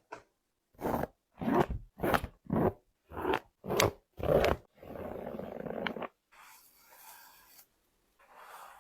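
A Nike Air Max Scorpion sneaker being cut apart: about seven short rasping cutting strokes in a quick rhythm, then one longer steady scrape, fading to fainter scraping near the end.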